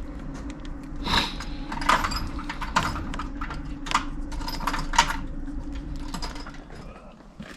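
Irregular metallic clicks, clinks and knocks of hand tools and small metal parts being handled while swapping the levers on a pit bike, over a steady low hum.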